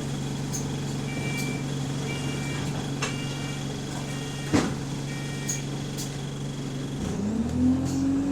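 Bus SE152's diesel engine idling with a steady hum, with short high beeps about a second apart and one sharp knock about halfway. Near the end the engine note rises steadily as it revs up to pull away.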